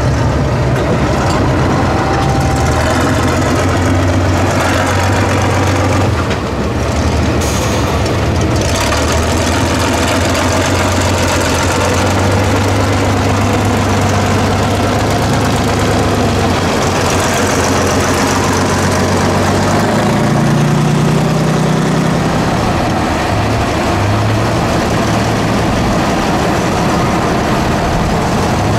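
Heavy diesel engine of an 8x8 Tatra trial truck working under load as it crawls over muddy mounds. It runs steadily, with the revs rising for a couple of seconds about twenty seconds in.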